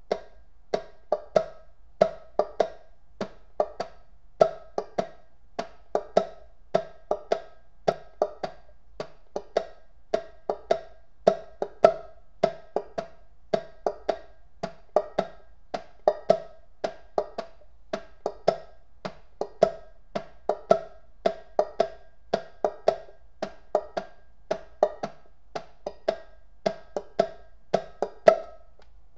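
Banjo played clawhammer style: a repeating boom-chuck rhythm of sharp, down-struck notes and brushes, about two to three strokes a second, each with a short bright ring.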